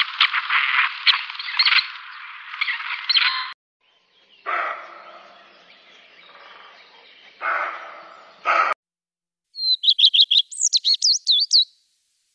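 A run of wild animal calls. First come rasping, scratchy calls of a grey partridge. Then a roe deer gives hoarse barks, each starting abruptly and fading. Near the end a black redstart sings a short, quick phrase of high, warbling chirps.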